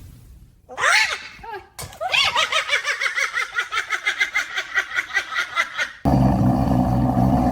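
A high-pitched cartoonish laugh: a short cry, then a rapid run of 'ha-ha' syllables, about five a second, for some four seconds. About six seconds in it gives way to a low, steady growl.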